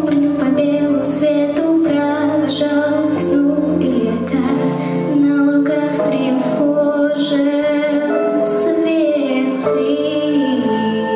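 A young girl singing a song with instrumental accompaniment, finishing on a long held note near the end.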